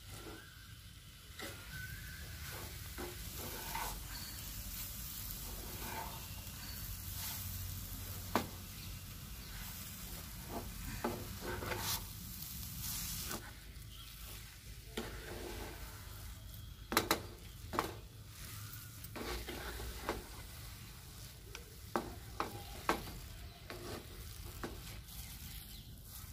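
A wooden spatula stirring and scraping a thick coconut, sugar and milk mixture in a nonstick pan over a gas flame, with a faint sizzle and a few sharp clicks. The mixture is being stirred without stop until it thickens to the setting stage.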